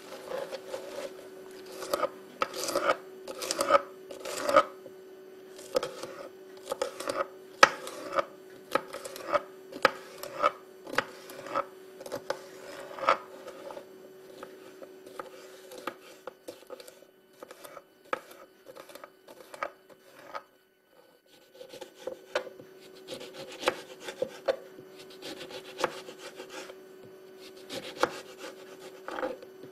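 A knife cutting vegetables on a cutting board in irregular strokes, about one or two a second, with a pause of a few seconds past the middle. A steady hum runs beneath.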